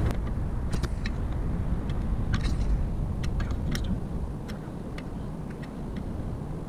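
Scattered light clicks and ticks, about a dozen at uneven intervals, from needle-nose pliers working a new clutch-pedal bushing side to side into its bracket to seat it, over a steady low background rumble.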